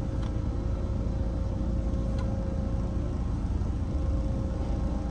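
A car engine idling, a steady low rumble with a faint steady hum over it.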